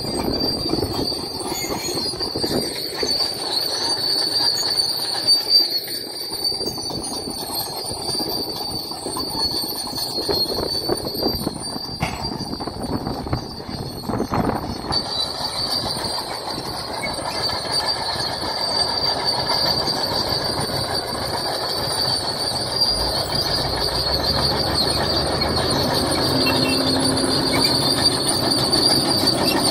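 Caterpillar crawler bulldozer at work pushing gravel: diesel engine running under load while its steel tracks squeal and clank.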